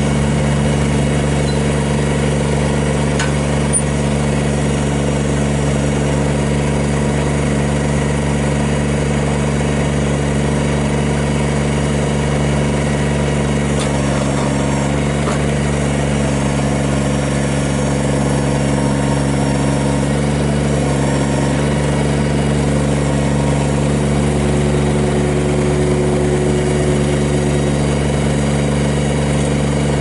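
Kubota BX25 subcompact tractor's three-cylinder diesel engine running at a steady speed while the tractor is driven, with no change in pitch.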